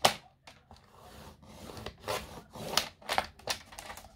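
A sharp tap, then several scraping, rubbing strokes: vellum paper being scored and its fold creased by hand.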